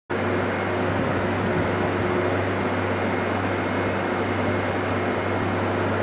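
Milk chiller's refrigeration unit running: a steady low hum under an even rushing, fan-like noise.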